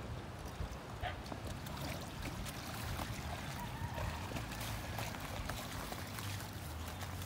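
Water trickling and splashing in the lake shallows as a folding boat is lifted out, with scattered small knocks and ticks over a low steady rumble.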